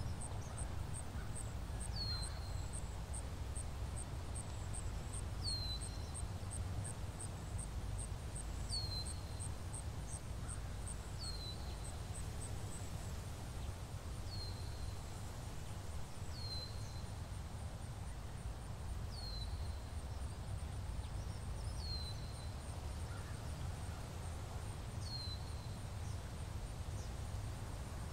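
Library forest ambience: a low, steady wind-like rumble with a bird repeating a short, falling call every two to three seconds. A faint, fast, high ticking runs through the first half and then fades into a thin steady tone.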